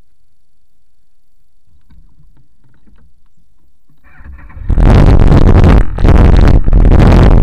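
Wind blasting across the microphone of a moving camera. A faint low rumble gives way about four and a half seconds in to loud, clipping wind noise, which drops out briefly twice.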